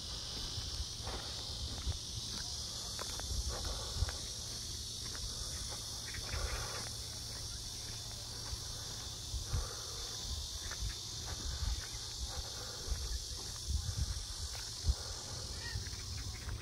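A steady, high-pitched chorus of insects droning without a break, with irregular low bumps underneath.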